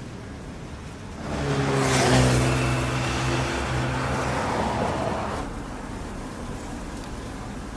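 Nissan R34 GT-R's built RB26 straight-six driving past. It comes up about a second in, holds a steady engine note for a few seconds, and fades away.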